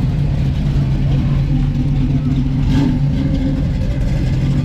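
Car engine running loud and steady at an even speed.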